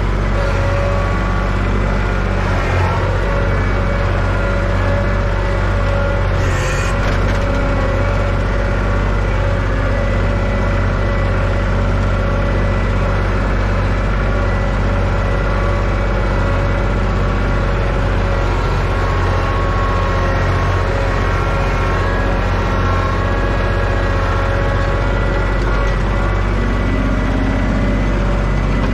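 New Holland TC33 compact tractor's diesel engine running at steady speed while the tractor drives across the field, with a brief rattle about six and a half seconds in.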